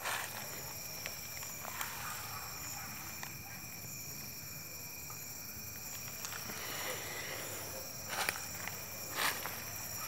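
Steady chorus of night insects with a few footsteps crunching through dry fallen leaves, mostly near the end.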